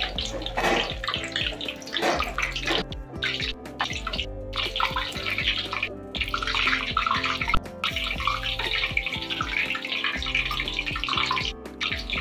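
Hot oil sizzling steadily as shrimp fritters deep-fry in a wok, with background music playing over it. The sizzle cuts out abruptly for a moment several times.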